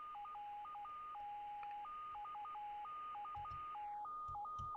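A two-tone frequency-shift-keyed data signal from the QO-100 narrowband satellite transponder, received through a Tesla TL-100 Ku-band LNB and demodulated as upper sideband by SDR software. A clean tone hops irregularly between a lower and a higher pitch over steady receiver hiss. Around four seconds in, the hiss turns duller as the receive bandwidth is narrowed.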